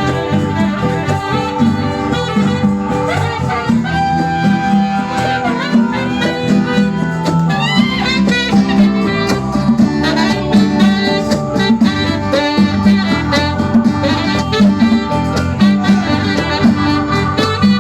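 A band playing live: guitar-led music with other instruments, continuous throughout.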